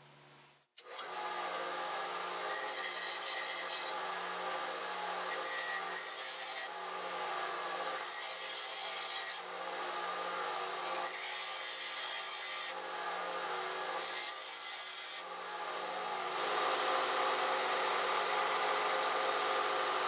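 Bench grinder running steadily while a twist drill is pressed to the wheel in five short passes. Each pass gives a second or so of louder, hissing grind. The drill's cutting lips are being ground flat so it cuts like a straight-flute drill.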